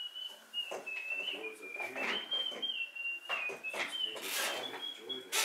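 A person whistling one long, high note that wavers up and down in small steps, with faint voices and a few brief rustles and clicks underneath.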